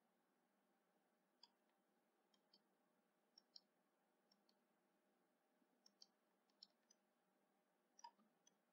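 Near silence broken by faint, scattered clicks of a computer mouse, about a dozen of them, some in quick pairs.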